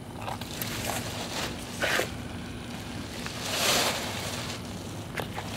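Broom sweeping burnt clothing debris on concrete into a plastic garbage bag: a few rustling, scraping swishes, the strongest about two seconds in and again near four seconds, with small clicks between.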